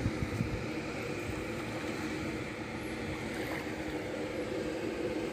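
Steady machinery drone, an engine-like hum that holds its pitch, with a few low knocks near the start.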